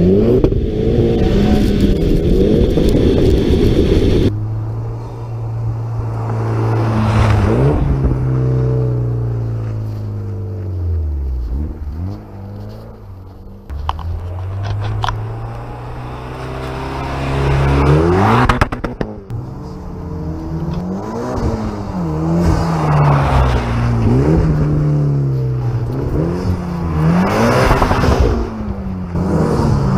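Mitsubishi Lancer Evolution X's turbocharged four-cylinder running through a MagnaFlow exhaust with a DC test pipe, revving up and down again and again as the car is driven on snow. The revs drop low about twelve seconds in, and near the end come in a string of quick climbs and falls.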